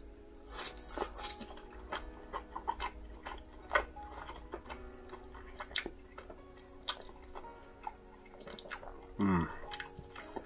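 Close-miked chewing of rotisserie chicken, with many short wet mouth clicks and smacks. About nine seconds in comes a short falling hum of the voice.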